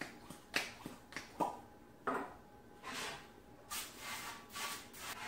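A few sharp clicks as an olive oil spray can is handled, then several short hisses of the aerosol spraying cooking oil onto a metal baking pan.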